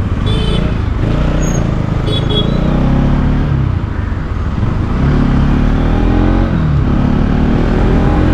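Motor vehicle engine running in road traffic, its pitch rising and falling twice as it speeds up and slows, over a steady low rumble. Two short high-pitched tones sound in the first few seconds.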